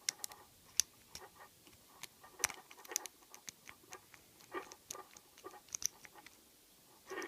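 Irregular small metallic clicks and taps from picking an ABUS 85/50 padlock with a short hook under light tension, as the pins are probed and set, with a few short rattling clusters.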